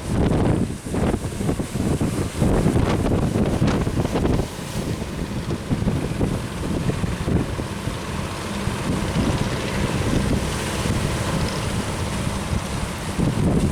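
Strong wind buffeting the microphone over the sea, with waves and surf beneath it; gusty for the first few seconds, then steadier.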